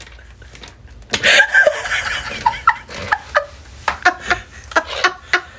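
A person laughing hard: a loud, breathy burst about a second in, then a run of short laughs about three a second.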